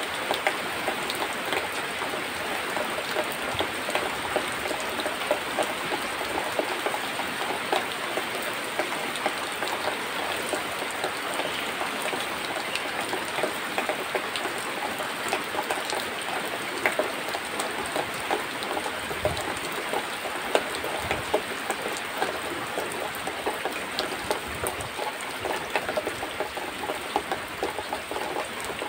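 Cow being milked by hand into a plastic bucket: jets of milk spattering into the bucket in a steady, dense hiss of tiny splashes.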